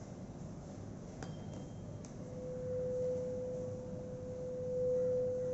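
A tuning fork is struck about a second in, giving a sharp tap and a brief high ring. Its pure, steady tone then swells loud as the fork is held over the mouth of a glass separating funnel used as a Helmholtz resonator. The air in the flask resonates with the fork, near its maximum.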